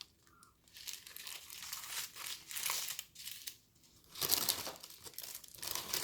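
Small plastic packets of diamond painting drills crinkling as they are handled and sorted, in several bursts with short pauses, the loudest starting about four seconds in.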